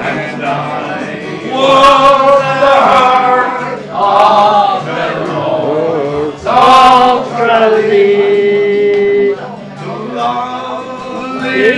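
A man singing a song with acoustic guitar strumming along, his phrases broken by short breaths; past the middle he holds one long, steady note.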